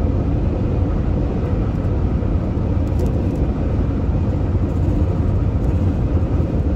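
Steady low road rumble and tyre noise heard inside a vehicle's cabin cruising at highway speed.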